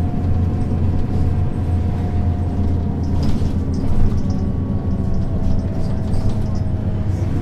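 Mercedes-Benz O 530 Citaro city bus running, heard from on board: a steady low engine drone with a faint high whine.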